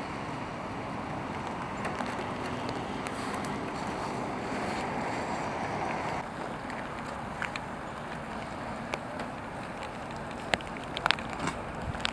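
Steady rushing noise of floodwater running over a road, mixed with wind on the microphone. About six seconds in it drops a little, and scattered sharp ticks come through.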